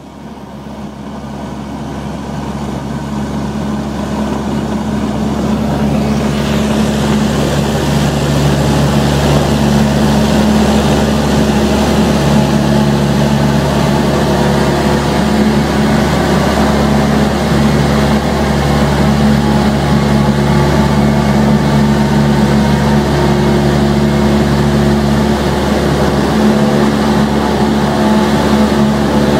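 Cessna 172's four-cylinder Lycoming engine and propeller at full takeoff power during the takeoff roll, heard from inside the cabin as a steady drone. It grows louder over the first several seconds, then holds.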